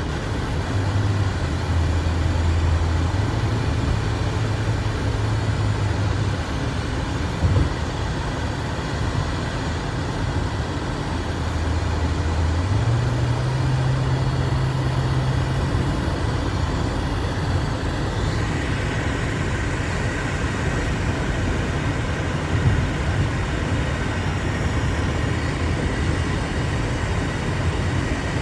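Steady road and tyre noise of a car driving through a road tunnel, heard from inside the cabin. Under it runs a low engine hum that shifts in pitch a few times, and two short knocks come about a third of the way in and again about three quarters in.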